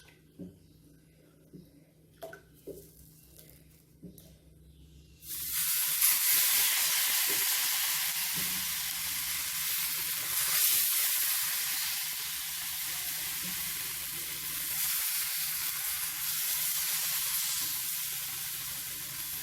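A few faint clicks, then about five seconds in a sudden, steady sizzling as ragi dosa batter goes onto the hot oiled tawa and starts to cook.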